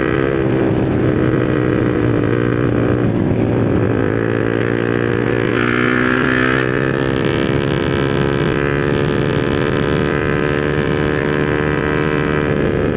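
Honda RS150R's single-cylinder four-stroke engine breathing through an open Espada 32mm exhaust, running loud and steady at cruising speed, with wind on the microphone. A brief burst of hiss about six seconds in.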